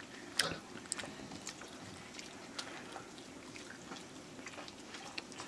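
Faint small clicks and scrapes of children's fingers mixing rice and greens on steel plates while eating by hand, with one sharper click about half a second in.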